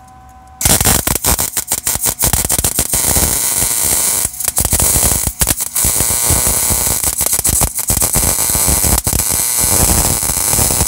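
MIG welding arc crackling steadily as a bead is run on a truck's steel frame. It starts about a second in and carries on with a few short breaks.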